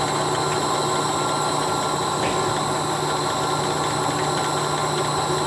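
Electric overhead crane running, a steady machine drone with a constant low hum, during a brake-adjustment test run.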